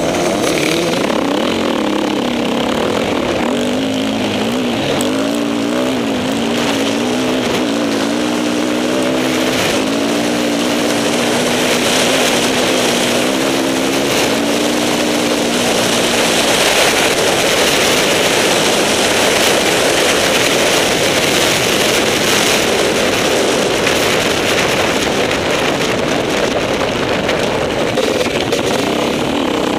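Enduro motorcycle engine running under throttle: its pitch rises and falls in steps through the first half, then gives way to a steadier, noisier drone as the bike runs down a straight.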